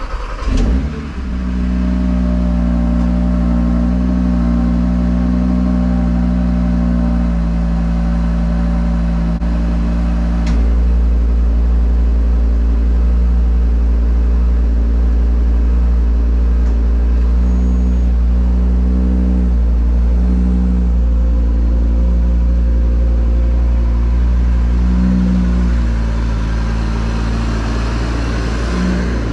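Audi RS3's 2.5-litre five-cylinder engine running steadily on its stock exhaust, secondary cats still in place, heard from inside the cabin as a constant low drone.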